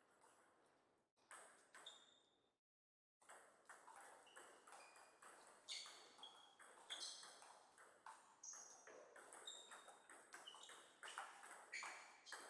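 Table tennis rally: the celluloid-type ball clicks off the bats and the Donic table in a quick, irregular run of sharp ticks, many with a short high ping after them. The sound drops out completely for a moment near the start.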